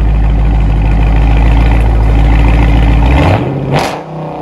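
A Dodge Charger Scat Pack's 392 (6.4 L) HEMI V8 runs loud and steady through an exhaust of DynoMax Race Bullets in place of the mid mufflers, with the factory X-pipe and rear resonators kept. About three seconds in, the engine note drops sharply to a quieter idle, followed by a brief sharp burst near the end.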